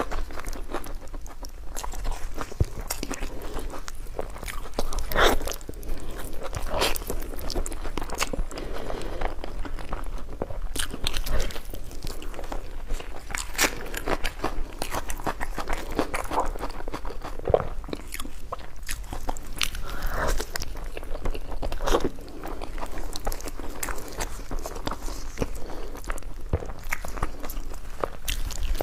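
Close-up biting and chewing of crunchy food, with many irregular crunches throughout.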